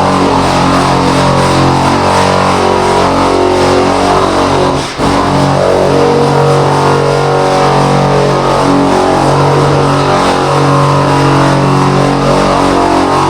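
Background music: a guitar-led song intro playing steadily, with a brief dip about five seconds in.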